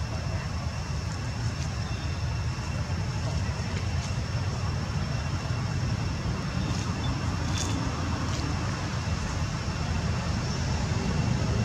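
Steady outdoor background noise: a constant low rumble with two faint, steady high-pitched tones above it.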